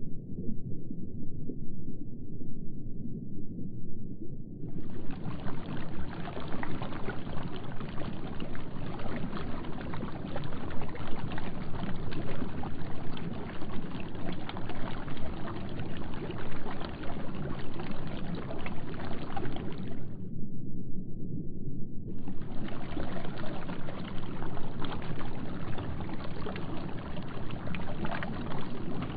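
Steady rushing, gushing water, dull and muffled at first. About five seconds in it opens up into a fuller, hissier splashing. It goes muffled again for about two seconds near twenty seconds in, then turns full again.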